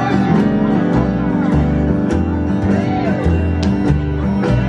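Live country band playing: a strummed acoustic guitar over an upright bass.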